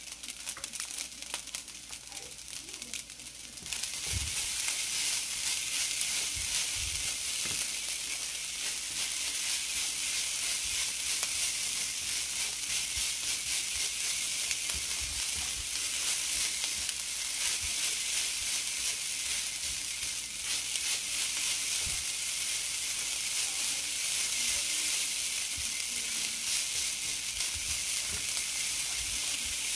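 Rice frying in a nonstick pan with a steady sizzle that turns louder about four seconds in, stirred with a silicone spatula that gives occasional soft knocks against the pan.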